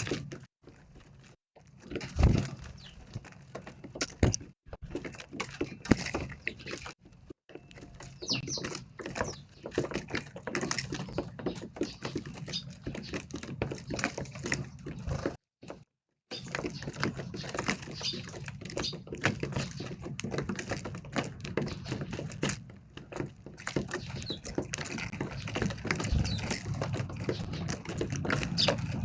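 Eurasian tree sparrows pecking and scrabbling at pieces of castella cake: a quick, irregular run of light taps, with occasional short high chirps, over a low steady background hum.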